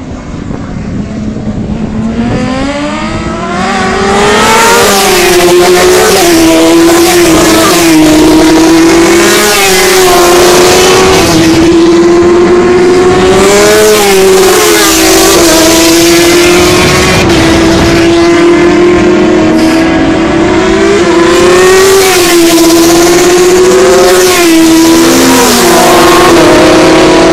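Superbike racing motorcycles passing at speed one after another, engines at high revs with pitch rising and falling as they change gear and go by. The sound builds over the first few seconds and then stays loud.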